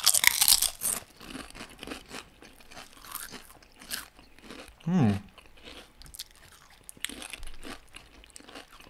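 Two people biting and chewing crisp potato chips close to their microphones: a run of sharp crunches, loudest in the first second, with a short hummed 'mm' about five seconds in.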